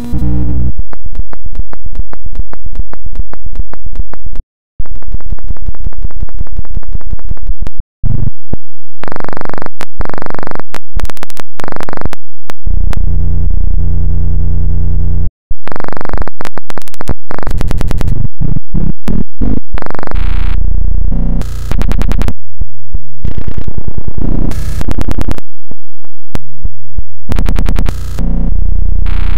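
Very loud, heavily distorted effects-processed audio: synth-like music chopped into rapid stutters, with a few brief cut-outs to silence about 5, 8 and 15 seconds in.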